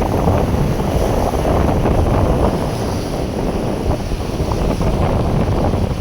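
Strong wind buffeting the microphone, a loud, dense and steady rumble.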